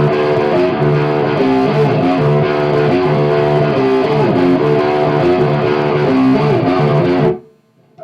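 Electric guitar playing a riff of held chords, changing every half second or so, until it stops abruptly about seven seconds in.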